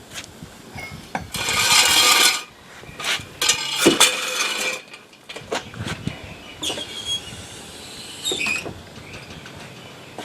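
Tools and metal parts being worked by hand on a car: two stretches of scraping and rubbing, with clinks and knocks between them.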